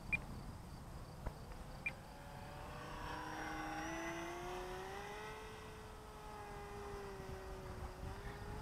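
Electric motor and propeller of a small Depron foam profile model plane flying past, a faint whine that rises in pitch as it comes close, then holds and slowly sinks as it flies away. A few small clicks come in the first two seconds, over a low rumble of wind on the microphone.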